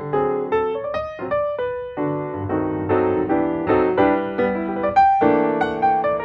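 Background piano music: a melody over chords, notes struck in quick succession.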